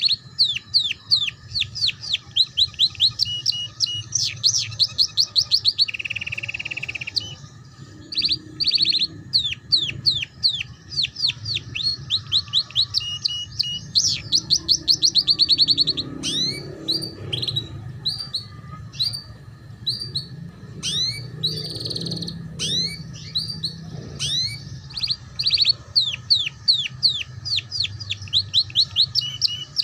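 Yellow domestic canary singing a long, fast song of rapid repeated trills and rolls, each a quick run of sweeping notes, in the chattering style Indonesian keepers call ngeriwik.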